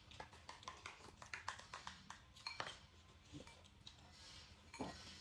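Faint scattered clicks and clinks of tableware while someone eats: utensils and dishes tapping against each other.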